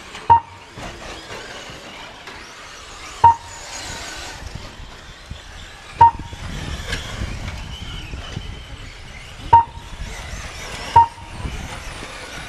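Five short, loud beeps from a race lap-timing system at uneven intervals, each marking an RC short-course truck crossing the timing line, over a steady background of the model trucks running on the dirt track.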